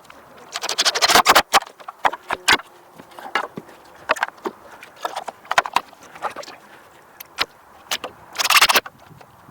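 Knocks, taps and clicks of hand work on a wooden greenhouse frame, with two short bursts of rapid clicking, one about a second in and one near the end.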